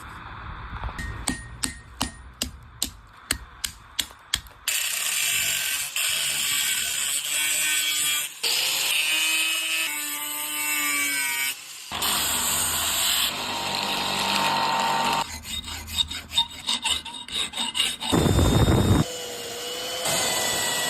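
Workshop tool sounds in quick succession: a run of regular sharp knocks, about two a second, then loud abrasive grinding or sanding that starts and stops abruptly several times, with more knocks later on.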